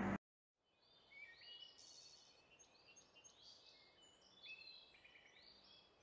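Faint birdsong outdoors: a string of short, high chirps and whistled notes that rise and fall in pitch, starting about a second in, over a soft background hiss.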